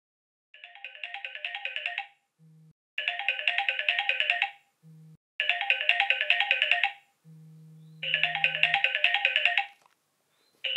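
Smartphone alarm ringing: the same short chiming melody repeats in four bursts of about a second and a half, each louder than the last, with a low steady buzz in the gaps between them.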